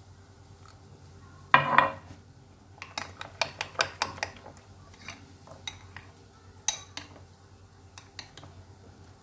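Metal spoon and dishes clinking against each other while something is mixed in a bowl: a loud clatter about one and a half seconds in, then a run of quick light clinks and a few scattered knocks.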